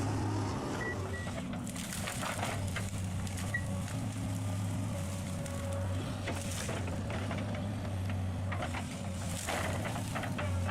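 A heavy machine's engine running steadily, with several sharp cracks or knocks scattered through, a few seconds apart.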